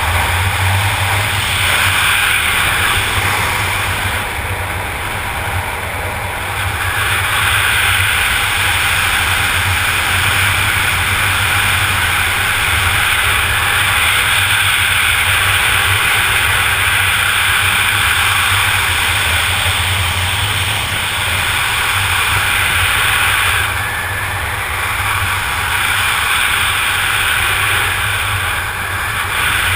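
Steady wind rushing and buffeting over a helmet camera's microphone during parachute canopy flight, a continuous noisy rush with a low rumble underneath. It eases slightly a few times, around five seconds in and again near the end.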